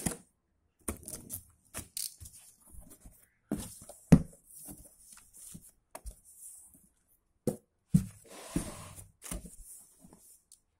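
Cardboard box being slit open along its taped seam and its flaps pulled back: irregular tearing and rustling with a few sharp knocks, the loudest about four seconds in and again about eight seconds in, as cardboard and foam packing are handled.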